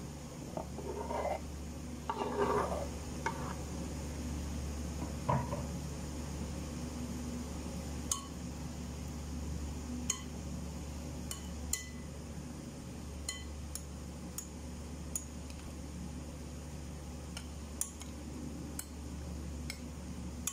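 A metal spoon tossing a chopped salad with boiled eggs in a bowl: soft scraping and shuffling of the vegetables in the first few seconds, then sharp clinks of the spoon against the bowl every second or two, over a steady low hum.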